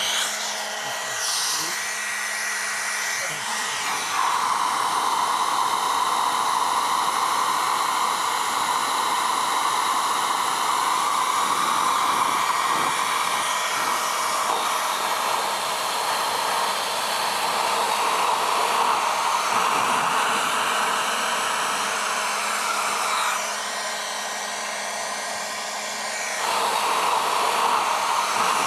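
Leaf blower running with a steady rushing whoosh of air. It grows louder about four seconds in, eases off for a few seconds near the end, then swells again.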